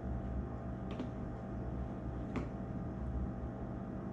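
Two light clicks over a steady low hum.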